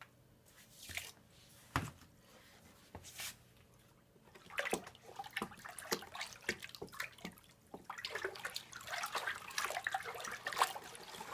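A wooden stick stirs water in a plastic bucket, dissolving cleaning powder. The water splashes and sloshes irregularly. A few separate knocks come first, then the stirring starts about four seconds in and grows busier and louder near the end.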